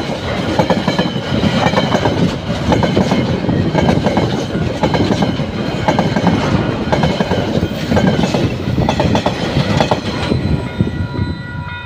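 Container wagons of a freight train rolling past, their wheels clattering over the rail joints in irregular groups. The rolling noise drops about ten seconds in as the last wagon clears, leaving the steady ringing of the level-crossing bell.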